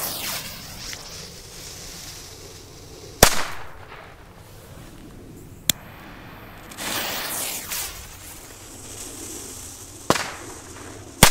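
Nico Klo-Cracker firecrackers with clay plugs going off one at a time: a sharp bang about three seconds in (the loudest), a smaller one near six seconds, and two more close together near the end.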